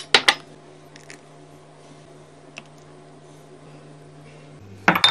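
Glass mugs and porcelain cups clinking on a granite countertop as they are handled and set down: a few sharp clinks at the start, a couple of faint taps, then another clatter near the end. A steady low hum runs underneath.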